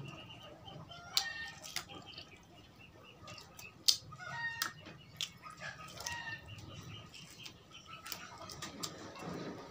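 Close-up eating with the hands: wet chewing and lip-smacking with sharp clicks, the loudest just before the middle. Short clucking calls of chickens in the background, several times.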